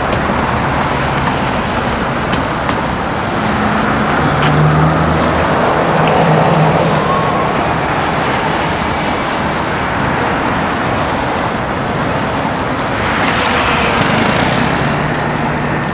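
City street traffic noise: a steady wash of cars and engines driving through an intersection, with a vehicle passing close by near the end.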